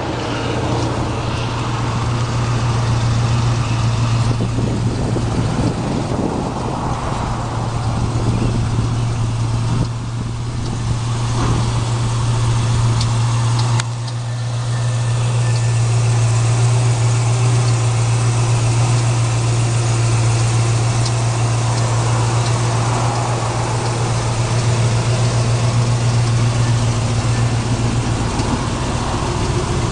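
A 1973 Chevrolet Camaro's engine idling steadily at a low, even pitch.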